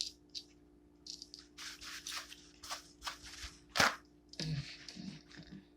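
Tarot cards being shuffled and handled by hand: a series of short, soft swishes with one sharp snap of the cards a little under four seconds in, followed by a brief low vocal sound.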